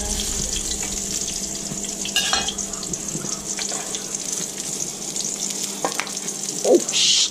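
Ladyfish patties sizzling in hot oil in a frying pan, a steady hiss with fine crackles of spattering oil. A louder spit of oil comes near the end.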